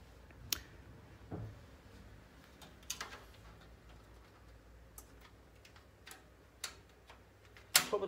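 Thin sheet-steel I/O shield knocking and clicking against the steel PC case as it is handled and pressed into the case's rear opening: scattered light taps, a few close together around three seconds in, and a sharper click just before the end.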